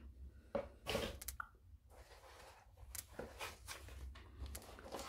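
Faint, scattered light clicks and rustles of packaging being handled, a few short sounds spread over several seconds.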